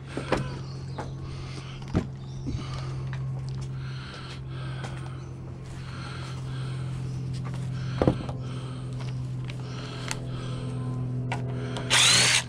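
Wooden boards knocking as they are handled, a few sharp clunks over a steady low hum, then near the end a brief loud burst with a rising whine, the loudest sound.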